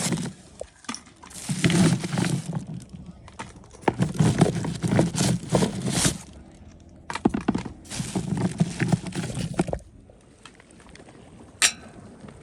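Three bouts of clattering and clinking, hard objects knocked and rattled together, each lasting a second or two, with a single sharp click near the end.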